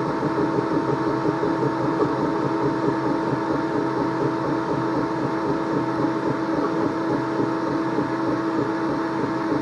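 Creality K2 Combo 3D printer running a print: a steady whirring hum of its fans and motors, with a fast fluttering buzz as the print head moves.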